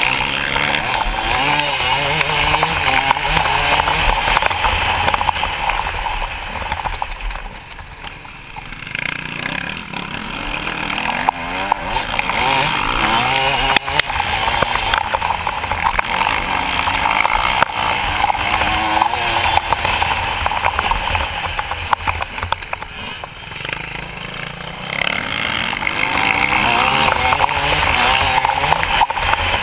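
Motocross bike engine revving hard under racing load, the pitch rising and falling through the gears, heard from a helmet-mounted camera with wind noise. The throttle eases off briefly twice, about a quarter of the way in and again about three quarters through.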